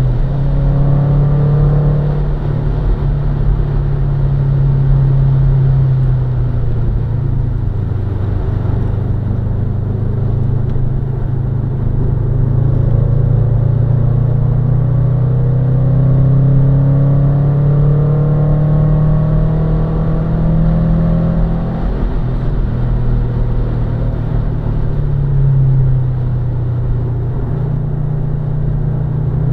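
Subaru Impreza's flat-four boxer engine being driven hard on track, its note climbing again and again and dropping back at gear changes and lifts. A heavy low road and wind rumble runs underneath.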